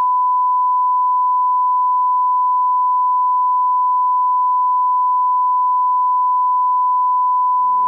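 A steady, unbroken electronic beep tone held at one pitch, the kind of attention tone laid over a warning card. Music begins to fade in underneath near the end.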